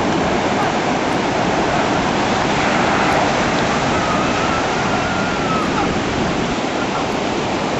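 Storm surf on the Black Sea: heavy waves breaking and washing in, a continuous loud rush of water.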